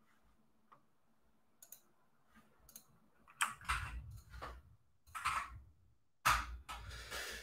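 Computer mouse clicks and keyboard keystrokes while a video link is looked up and pasted: a few faint single clicks, then louder irregular bunches of clicks from about three and a half seconds in.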